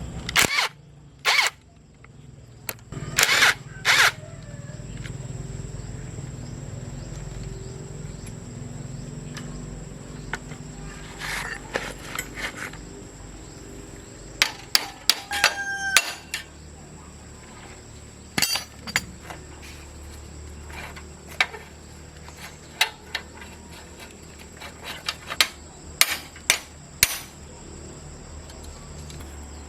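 Irregular sharp knocks and clinks of hand tools on metal bicycle parts, over a low steady hum.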